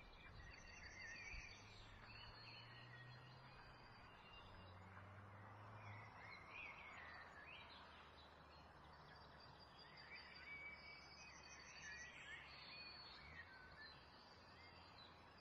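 Near silence: faint background hiss and a low hum, with faint short chirps now and then.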